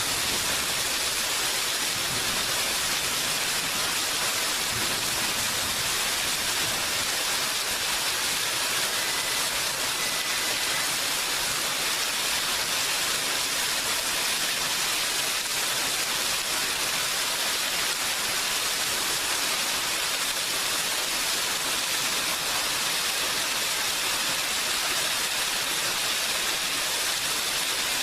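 Steady, even rain, falling heavily.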